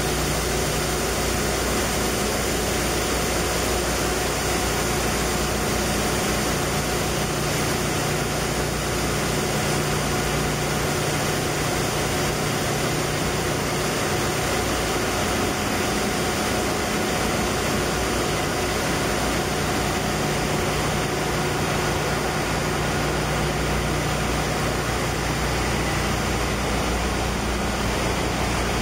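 Ship's engine room during a main-engine air blow: the large slow-speed marine diesel is turned over on compressed air, giving a steady loud hiss of air over the hum of running machinery. The noise holds level, with the low hum thinning for a few seconds around the middle.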